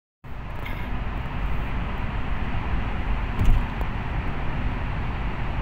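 Steady road and engine noise heard inside a moving car's cabin in a road tunnel, with one brief thump about three and a half seconds in.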